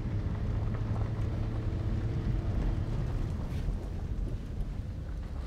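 Steady low rumble of a car driving slowly, engine and tyres heard from inside the cabin.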